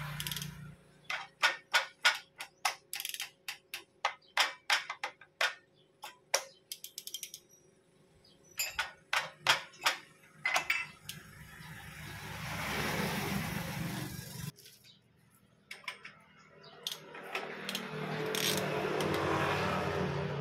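Sharp metallic clicks, one or two a second, from the camshafts and gears of a 16-valve twin-cam cylinder head being turned by hand. Later a rushing noise swells up and cuts off suddenly, and a second one builds near the end.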